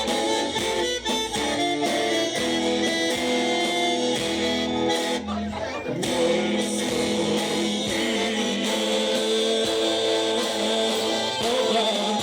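Bulgarian folk band music: a sustained melodic lead over guitar accompaniment, playing without a break.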